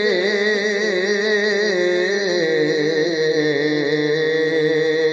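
A voice singing an Urdu naat, drawing out a long wavering note at the end of a line without breaks for words. A low steady tone joins under it about halfway through.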